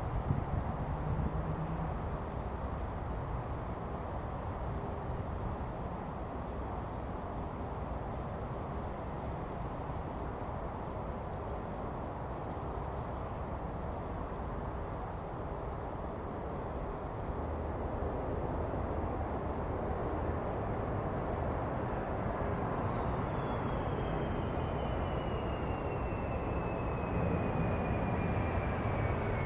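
Boeing 767-300ER's jet engines on approach and landing: a steady jet rumble that grows louder in the second half. Over the last several seconds a high engine whine falls steadily in pitch.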